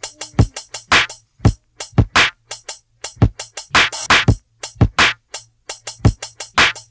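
Old-school 1980s hip hop drum machine beat: sharp kick and snare hits in a steady rhythm.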